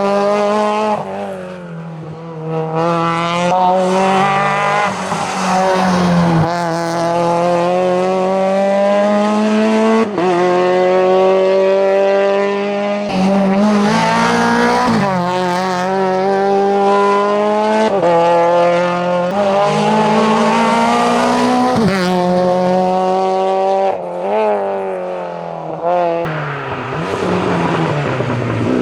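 Renault Twingo R2 rally car's four-cylinder engine driven flat out, its pitch climbing through each gear and dropping sharply at every upshift, with short lifts and dips in between.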